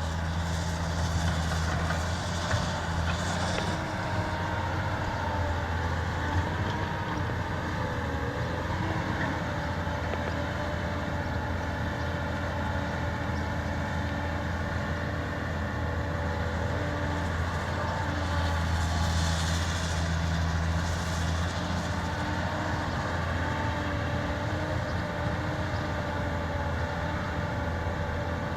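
Caterpillar 320D RR hydraulic excavator working soil: a steady diesel engine drone with a wavering whine above it. Two stretches carry extra hiss, one about a second in and one about two-thirds of the way through.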